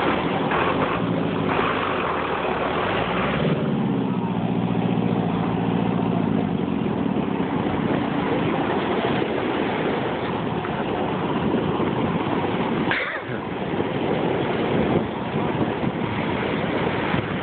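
An engine running steadily, fading out about six seconds in, over a constant rush of wind and surf noise.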